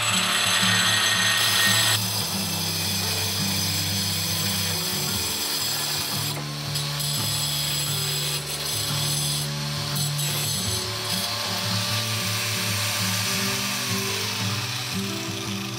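Handheld angle grinder cutting a fired-clay Mangalore roof tile to size, a loud continuous grinding hiss, over background music.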